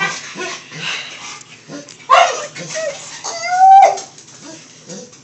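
A small dog in labour whimpering while straining to deliver a puppy: short whimpers, then one longer whine about three and a half seconds in that holds its pitch and drops off.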